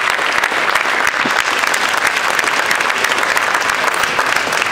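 Large crowd applauding, a steady dense clapping that holds at an even level.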